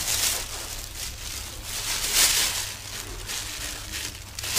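Plastic bag rustling and crinkling in short bursts, one near the start and a louder one about two seconds in.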